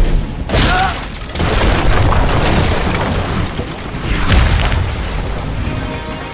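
Film fight sound effects: heavy booming impacts and crashing, scattering debris over a continuous rumble, with big hits about half a second, 1.4 seconds and 4.3 seconds in.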